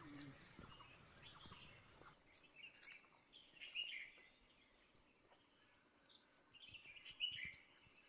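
Faint bird chirps in the undergrowth: short high calls in two brief clusters, about three seconds in and again near the end, over a quiet background.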